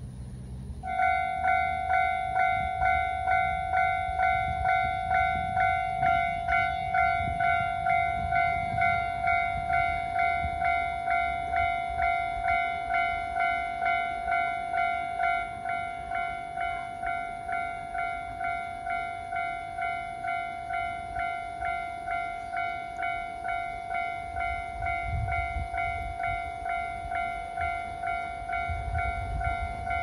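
Japanese railway level-crossing alarm: an electronic warning bell, the standard tone of a voice-announcement-type crossing unit, with no spoken announcement. It starts about a second in and rings steadily at about two strikes a second. It drops in volume about halfway through, with the barriers down.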